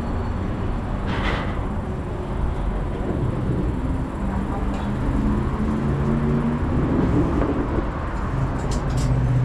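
Outdoor market and street ambience: a steady low rumble of traffic, with a short clatter about a second in.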